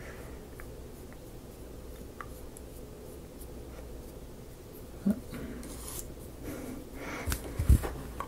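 Fine paintbrush making faint scratchy strokes on a thin wooden kit piece, then the wooden piece is handled and turned, with a sharp knock about five seconds in and two louder knocks near the end.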